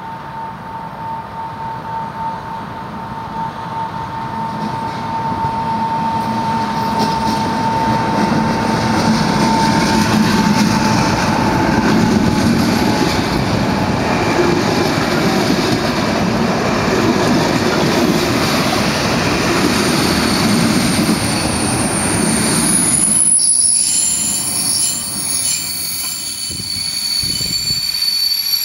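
Local passenger train pulling into the station past the platform: a steady whine on the approach, then rumble of wheels on the rails that builds and stays loud. Near the end the rumble falls away and high squealing from wheels and brakes rings out as the train slows to a stop.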